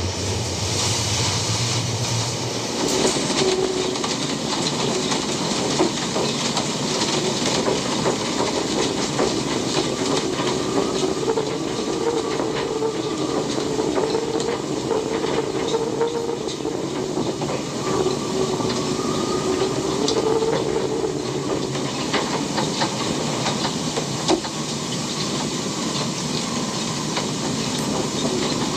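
Horror-film sound design: a loud, steady hiss-like drone with a wavering mid-pitched tone running through it and scattered faint clicks.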